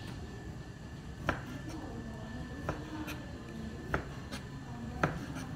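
Kitchen knife cutting through food and knocking on a plastic cutting board: four main strokes a little over a second apart, with lighter taps between them.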